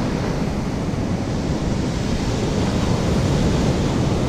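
Rough ocean surf breaking and washing up the beach, a steady rushing noise, with wind rumbling on the microphone.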